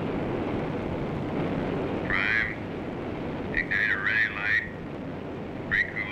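Steady rushing noise of an air-to-ground radio link, broken by short, garbled bursts of radio transmission about two seconds in, around the middle, and just before the end.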